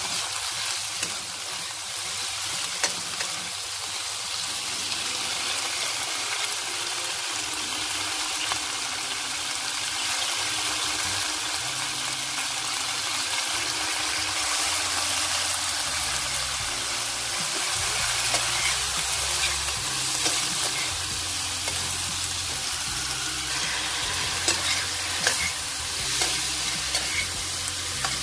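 Long beans, carrots and peppers sizzling in hot oil in a wok as they are stir-fried, with a metal spatula stirring and scraping them and clicking now and then against the pan.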